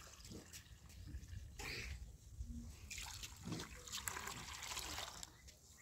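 Water poured in a thin, faint trickle from a plastic jerrycan into a plastic cup, then from the cup into a pot of sugar and lemon juice.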